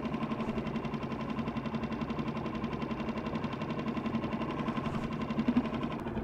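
Boat engine idling with a steady, even pulse.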